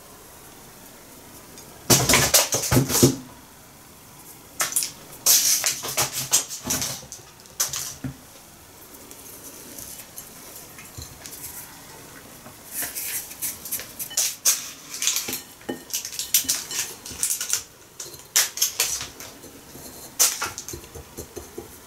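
A china plate clinking and scraping in irregular clusters, loudest a couple of seconds in, as date-and-nut candy balls are rolled by hand in crumbs on it.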